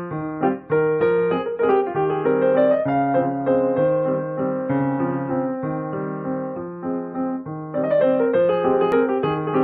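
Background piano music: a steady run of notes over a changing bass line.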